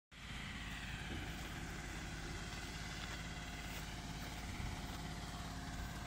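Fire truck engine running steadily, with a steady hiss over it.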